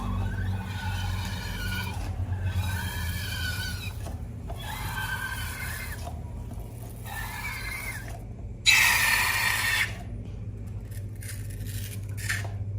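Rubber balloons squealing in a series of wavering, pitched squeaks about a second long each. About nine seconds in comes a loud hiss of rushing air lasting about a second. A steady low hum runs underneath.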